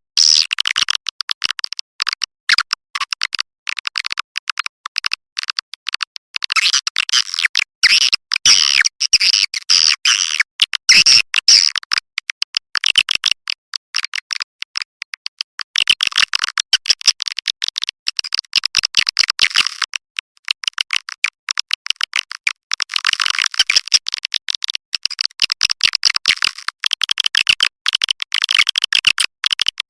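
Swiftlet lure call track: dense, rapid high-pitched chirping and twittering of white-nest swiftlets, swelling and thinning every few seconds.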